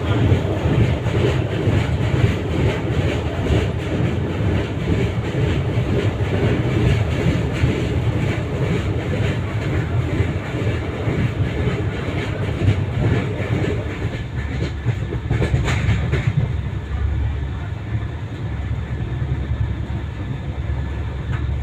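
Passenger train running along the tracks: a steady rumble with rapid clickety-clack of wheels over rail joints. The clatter turns duller about sixteen seconds in.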